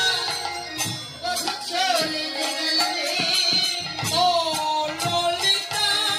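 A Bengali kirtan performance: a woman sings a devotional song through a microphone, over rhythmic jingling hand percussion and drum strokes.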